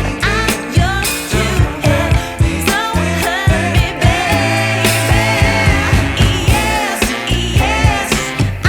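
Background song with a sung vocal over a steady beat and bass.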